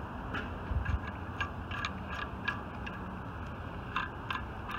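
Irregular light clicks and ticks, about two a second at most, over a steady background hiss.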